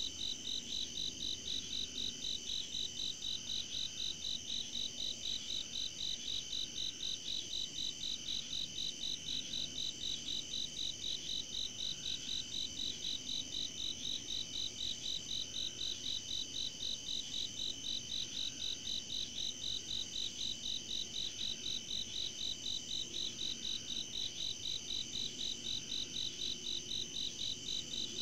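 Night insect chorus of crickets: a rhythmic pulsing chirp, about two to three pulses a second, over a steady higher-pitched trill.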